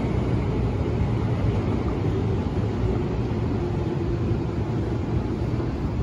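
Tobu 50090 series electric train pulling away into the distance: a steady low rumble with a faint humming tone in the middle.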